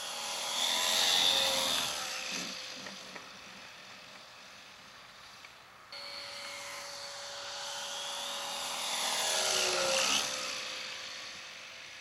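Radio-controlled model Cessna flying low passes, its engine and propeller growing louder as it approaches and dropping in pitch as it goes by, twice, with an abrupt cut about six seconds in.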